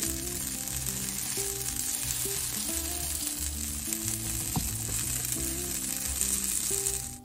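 Pupusas frying on a hot griddle pan, a steady sizzling hiss that cuts off suddenly near the end, with background music of low notes underneath.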